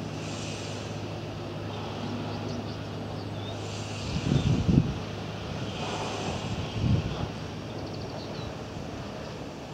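Outdoor ambience dominated by wind buffeting the microphone in two gusts, a louder one about four seconds in and a shorter one about three seconds later. Under them is a steady low hum that dies away as the first gust arrives.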